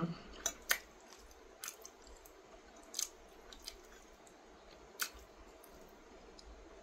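Quiet eating sounds: chewing, and a handful of sharp clicks scattered a second or so apart as a metal fork taps and scrapes a ceramic plate.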